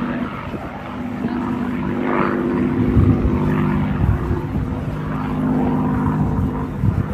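Supermarine Spitfire's piston engine droning as the propeller aircraft flies by, a steady note that wavers in pitch.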